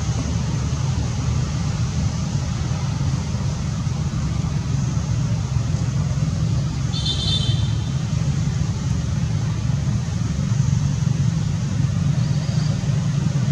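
A steady low rumble, with one short high-pitched chirp about seven seconds in.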